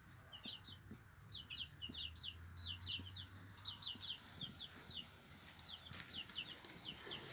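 A bird chirping steadily: short, high, falling chirps, often in quick pairs or threes, repeated over a faint low rumble.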